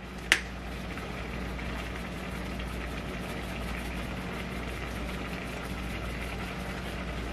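Steady low hum with no change in level, and one sharp click about a third of a second in.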